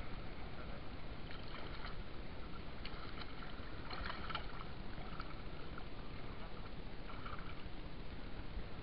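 Sea water sloshing around a gill net being pulled up by hand in shallow water, with small splashes and drips now and then over a steady wash.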